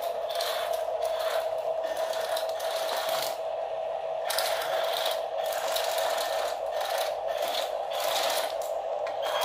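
Small electric motor and plastic gearbox of an RC toy dump truck whining as it drives, over a steady high whine, with a grinding, clattering gear noise that swells and fades every second or so.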